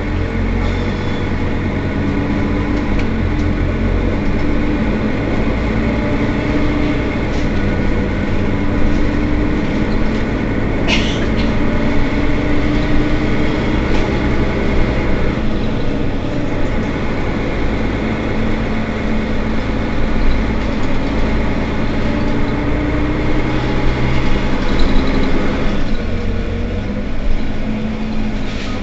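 Mercedes-Benz Citaro Facelift city bus engine running continuously, its pitch rising and settling several times, with one short sharp sound about eleven seconds in.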